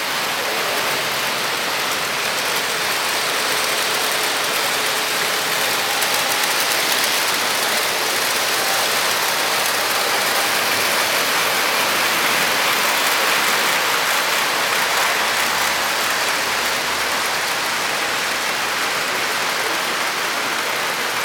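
Model trains running on metal track: a steady hiss-like rush of wheels and motors, swelling slightly in the middle.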